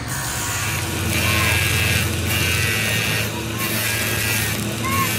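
Stick (arc) welding on a cracked tractor engine block: the electrode's arc crackling and hissing over a steady low hum, the crackle breaking off briefly a few times.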